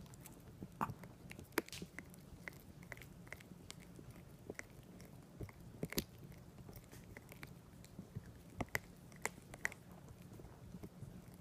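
Small Yorkshire terrier chewing and gnawing on something hard, an irregular series of sharp clicks and crunches.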